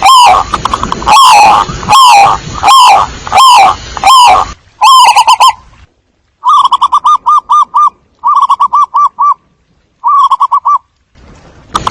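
Zebra dove calls from a loud decoy recording: about six falling cooing phrases, roughly one a second, then after a short pause three runs of rapid staccato coos.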